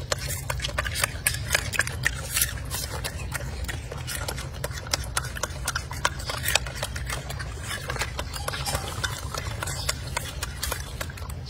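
Golden snub-nosed monkey chewing fruit: irregular crisp crunching clicks, a few each second, over a steady low hum.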